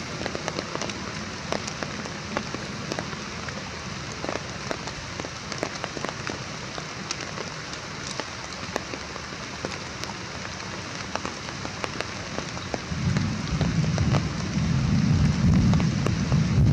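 Steady rain falling on leaves and ground, with many scattered drop ticks. A deeper low rumble joins near the end and grows louder.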